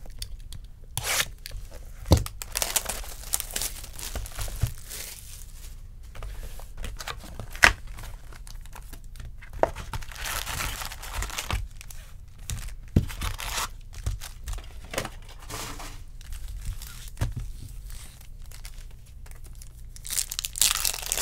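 Hands opening a sealed box of trading card packs: wrapping and cardboard tearing, packs rustling, and a foil card pack crinkling and tearing open near the end, with scattered clicks and knocks of handling.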